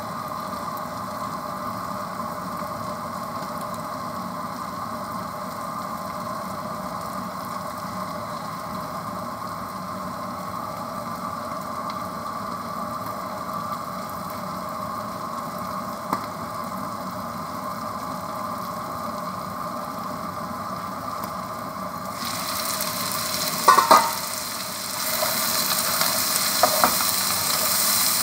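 Spring-onion stalks and prawns frying in oil in a covered wok, a steady muffled sizzle. After about twenty seconds the steel lid comes off and the sizzle turns loud and hissing. A couple of sharp clanks follow, then a wooden spatula stirs and scrapes the pan.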